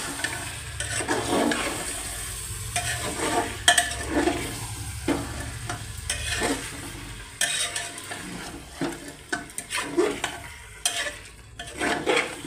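Spatula stirring masala-coated chicken pieces in an aluminium pressure cooker, with irregular scraping strokes against the pot over the steady sound of frying. This is the bhuna stage, the chicken being fried in its spice paste.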